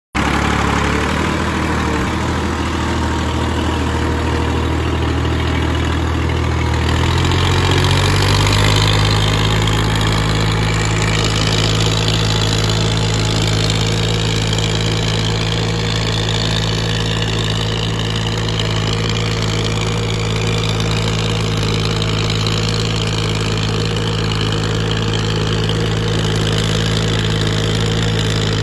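Massey Ferguson 240 tractor's three-cylinder diesel engine running steadily under load, pulling a harrow through wet mud. The engine note shifts about seven seconds in, then holds steady.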